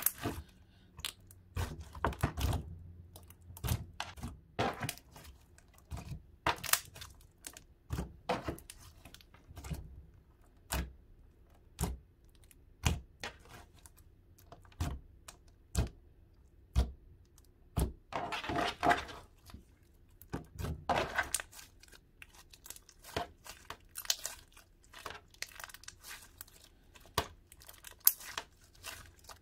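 Thick slime being squeezed and pressed in the hands, giving sharp irregular clicking pops and squelches. Two denser runs of crackling come about two thirds of the way in.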